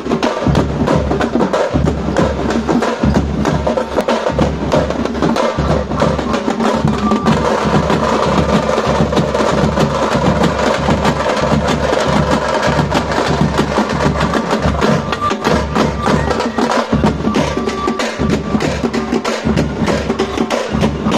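A band of drums playing a fast, dense, continuous rhythm, many strokes a second.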